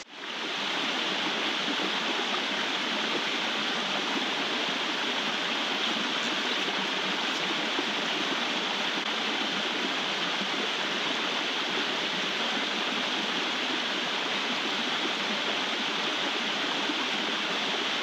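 Small rocky brook running over and between rocks: a steady rush of water.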